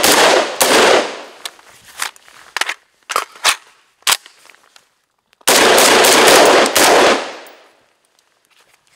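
Tinck Arms Perun X16 rifle with a 3D-printed plastic lower receiver firing. A fast string of shots comes at the start, then single shots about half a second to a second apart, then another fast string about five and a half seconds in. Each shot leaves an echo trailing off.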